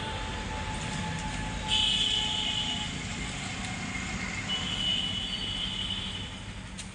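Steady low background rumble, with two short high-pitched tones, one about two seconds in and one about five seconds in.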